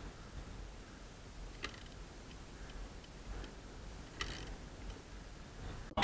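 A few faint clicks over a quiet background hiss, the two clearest about one and a half and four seconds in.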